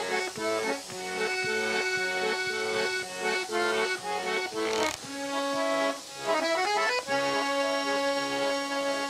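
Accordion music, a traditional-style tune with steady rhythmic chords under held melody notes and a quick run of notes about two-thirds of the way in.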